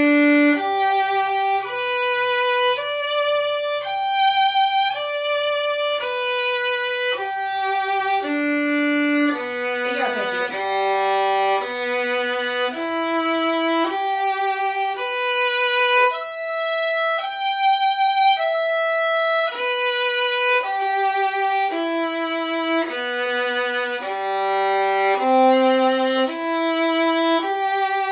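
Violin playing the G major scale and arpeggios in separate bowed notes, each held a little under a second, climbing and descending between low G and the G two octaves above.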